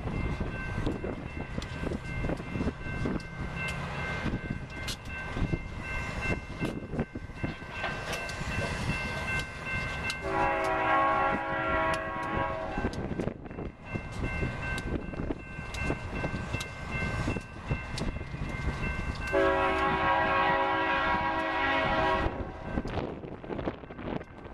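Diesel freight locomotive air horn sounding two long chords, about ten and nineteen seconds in, over the low rumble of locomotive engines and a steady high-pitched ringing with frequent clicks.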